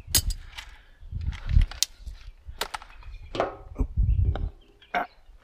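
Irregular sharp clicks and knocks of hand tools and metal parts being handled, with dull low thumps between them.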